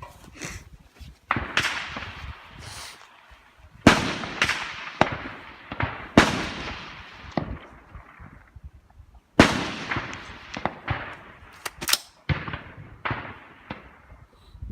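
Precision rifle shots ringing out across a range: four loud shots a few seconds apart, each trailing off in a long rolling echo, with fainter shots from other rifles in between.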